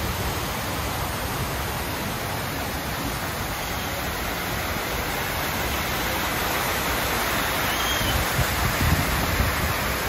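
Water falling and splashing at a working water wheel, a steady even noise, with a few faint knocks near the end.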